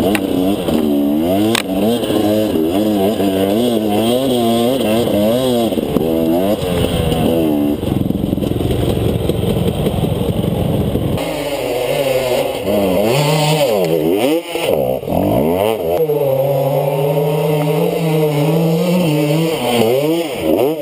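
Enduro dirt bike engine running under the rider, its pitch rising and falling over and over with the throttle on a forest trail. About eleven seconds in the sound changes abruptly, then the revving goes on, with a steadier held note for a few seconds near the end.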